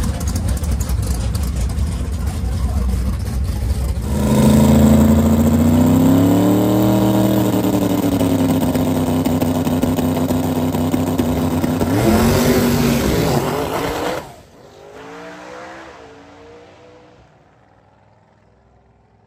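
Drag-radial race cars staging with a rumbling engine note, then launching hard about four seconds in. Their engines run loud at full throttle with a rising then held pitch and a brief wobble near the end of the run. About fourteen seconds in the sound drops off suddenly to a fainter, falling engine note that fades away as the cars go down the track.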